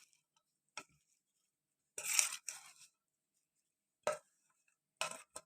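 Kitchen utensils and dishes handled while ingredients are added to a bowl: a few short clinks and scrapes, the loudest about two seconds in.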